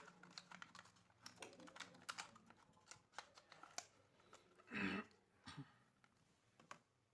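Faint, scattered clicks and taps, with a brief low thud-like sound about five seconds in.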